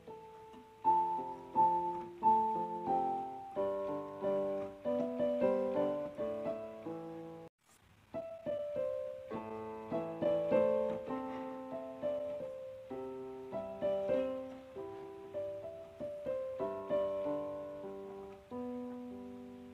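Background piano music: a gentle melody of single held notes, which breaks off for a moment about seven seconds in and then starts again.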